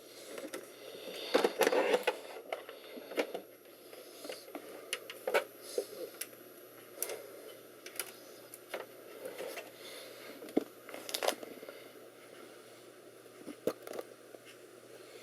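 Irregular small clicks, taps and scrapes from hands handling things at close range, with a denser rustle of handling between about one and two seconds in.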